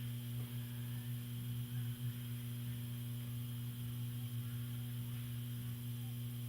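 Steady low electrical mains hum with a faint buzz, unchanging throughout.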